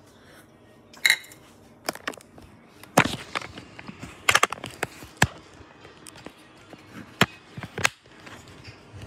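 Irregular sharp knocks and clicks from close handling of the recording phone, about nine of them at uneven intervals.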